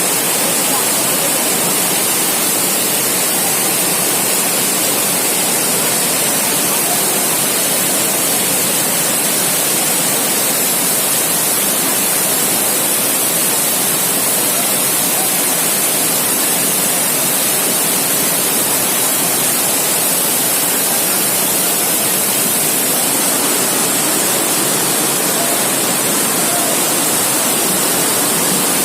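Heavy rain pouring down, a loud, even hiss that does not let up.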